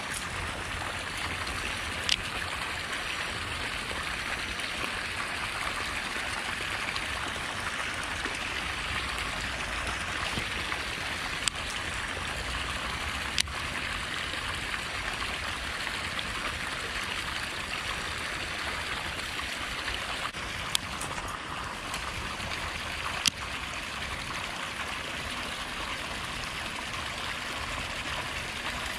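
Water pouring from a drain pipe into a concrete irrigation canal, a steady splashing flow. A few sharp clicks are scattered through it.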